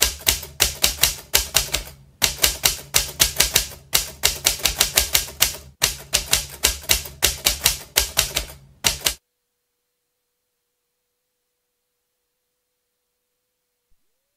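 Typewriter sound effect: rapid keystroke clacks in four runs with short breaks between them, stopping about nine seconds in. A very faint steady tone follows.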